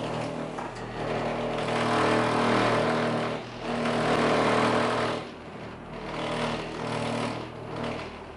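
Cable car gondola cabin in motion: a steady mechanical hum with rumbling and rushing that swells and eases several times.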